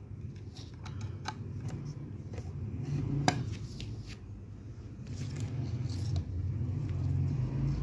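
Handling clicks and taps as a cable plug is fitted into the front port of a small 12 V to 230 V power inverter, with one sharp click about three seconds in. A steady low hum runs underneath and grows louder in the second half.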